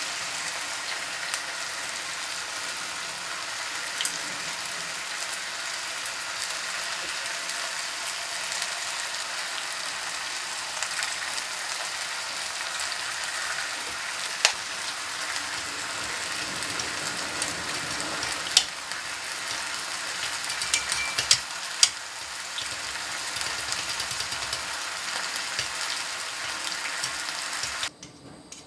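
Food frying in a pan with a steady sizzle, with a few sharp clicks and taps of a utensil through the middle; the sizzle cuts off abruptly near the end.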